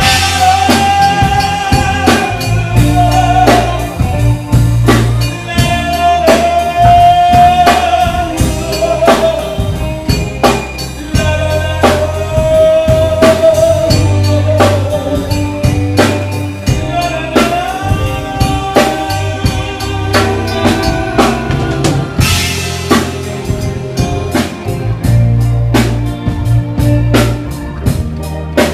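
Live band music: male voices singing over a drum kit, guitar, bass and keyboard, with a steady beat. Near the end the singing drops out, a cymbal crash comes in and the drums carry on in a fast, even pattern.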